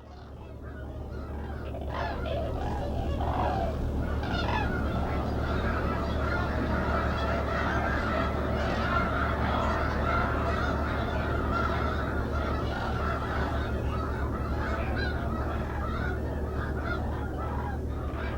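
A large flock of geese honking, with many calls overlapping continuously, over a steady low hum. The sound fades in during the first second.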